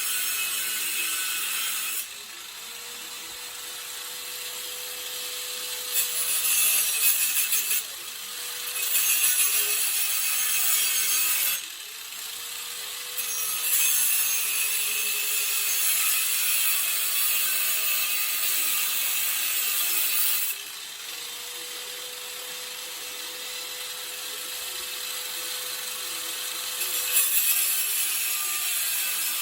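Angle grinder cutting metal: a harsh, high grinding that grows louder and eases off several times as the disc bites in and is let up, with the motor's steady whine showing in the lighter stretches.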